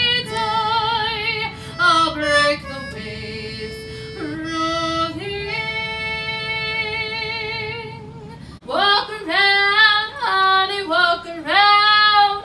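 A concertina playing sustained chords, with a woman's singing voice holding a wavering note at the start. After an abrupt cut about two-thirds of the way in, a woman sings loud, short phrases that swoop in pitch, without accompaniment.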